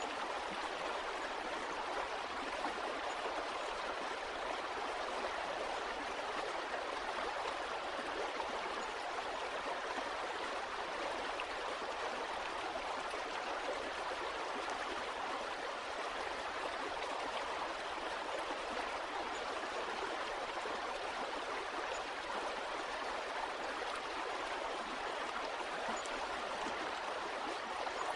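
Water flowing in a stream, a steady, even rush with no pauses or changes.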